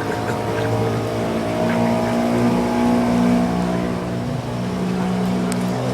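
Canal boat's motor running with a steady hum whose pitch shifts slightly as it goes.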